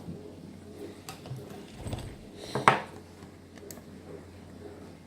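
Lock picking tools and a padlock being handled: faint small metal clicks and rustles, with one sharp metallic clink about two and a half seconds in.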